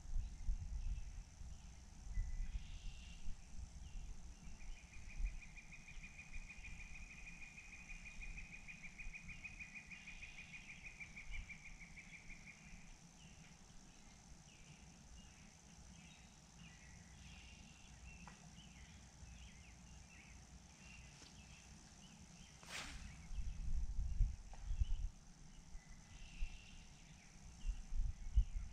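Calling animals: one long, even trill lasting about eight seconds at a single pitch, with scattered short chirping calls around it, over a low rumble that grows heavier near the end. A single sharp click about three-quarters of the way through.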